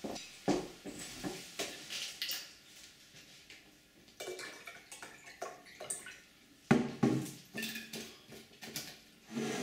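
Glass juice bottle and drinking glass handled on a wooden table: clinks and knocks of glass, with juice poured from the bottle into the glass about four seconds in, and a louder knock near seven seconds.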